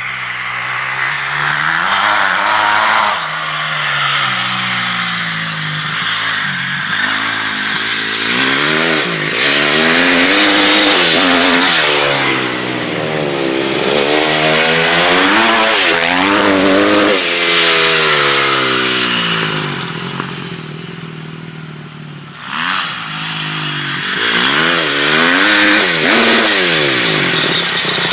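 Dirt bike engine revving up and down repeatedly as the bike is ridden around a field. It fades as the bike moves away about three-quarters of the way through, then grows louder again as the bike comes back toward the end.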